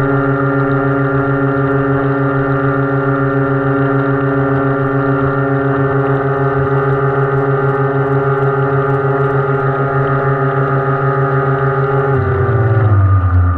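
Electric motor of a radio-controlled model rescue boat running at a steady speed, heard from on board as a steady whine over water rushing past the hull. About twelve seconds in, the pitch drops as the motor slows down.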